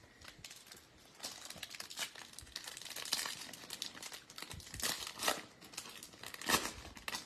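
A 2022 Bowman baseball card pack's wrapper crinkling in the hands and being torn open, in a run of irregular crackles with a few louder rips.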